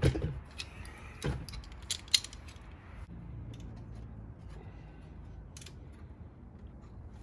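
A few sharp metallic clicks and clacks of locking pliers (vice grips) being worked onto a nut in the engine bay, the loudest about two seconds in. After about three seconds only a faint low hum remains.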